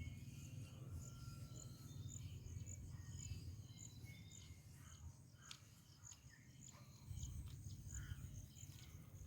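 Faint rural ambience: an insect, likely a cricket, chirping in a steady high-pitched pulse about twice a second, with a few short bird chirps and a low rumble of wind or microphone handling.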